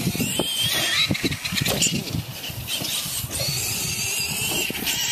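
Electric motors of a radio-controlled Clod Buster monster truck whining as it drives across a grass course, the whine wavering up and down with the throttle.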